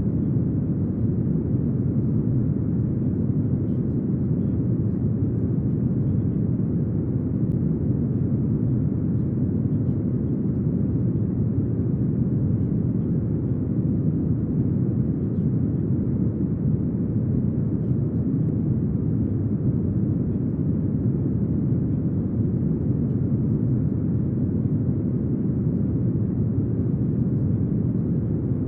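Steady brown noise: an even, deep hiss weighted toward the low end, with no change in level.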